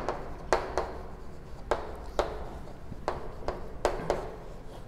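Chalk writing on a chalkboard: a series of irregular sharp taps and scratches as the letters are written.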